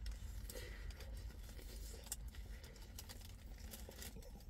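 Eating a burger held in a paper wrapper: faint crinkles of the wrapper and scattered small clicks of biting and chewing, over a steady low rumble.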